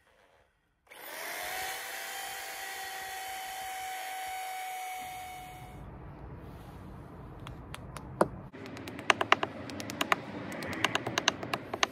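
Corded Bosch impact drill boring a fixing hole into brickwork with a masonry bit, running steadily for about five seconds with a steady whine. Then a hammer tapping plastic wall plugs into the drilled holes: a run of quick, sharp taps.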